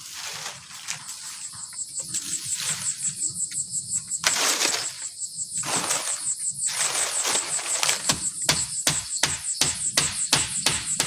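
A shrill insect chorus pulsing steadily at a high pitch, with broad swishing noises in the first half. From about eight seconds in comes a run of quick, regular knocks, about three a second.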